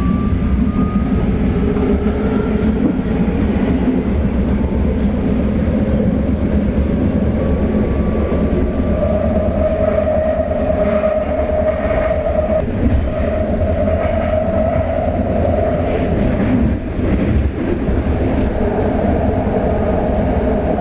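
Subway train running underground, heard from inside the car: a loud, steady rumble with clatter. A motor whine rises in pitch at the start, and a steadier whine holds through the middle.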